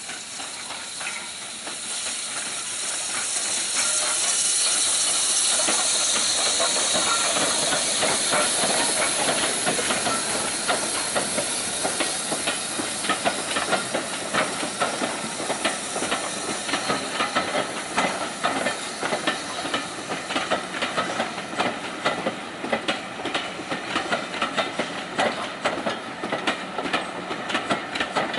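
Steam locomotive running past with a loud hiss of steam building over the first few seconds. It gives way to the rapid, rhythmic clicking of the passenger coaches' wheels over rail joints as the train rolls by.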